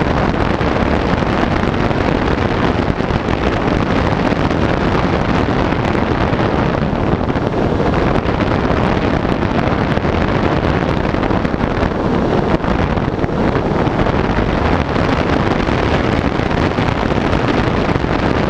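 Steady, loud wind noise buffeting the microphone of a camera riding on an EPP foam FPV plane in flight, with the plane's brushless electric motor and propeller running underneath.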